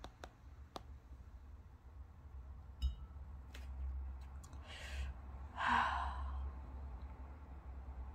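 A woman's impatient sigh: one breath out about six seconds in, with a softer breath just before it. A few faint clicks come earlier, over a low steady hum.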